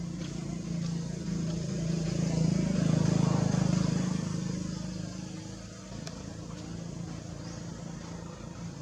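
A motor vehicle's engine running with a steady low hum. It swells to its loudest about three seconds in and dies back by about six seconds, as a vehicle passing by would.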